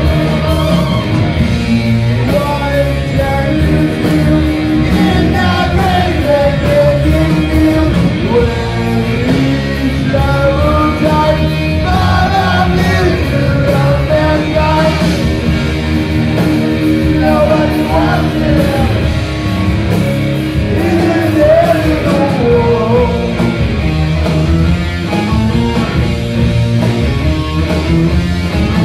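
Loud rock song with a lead vocal over a full band, playing steadily throughout.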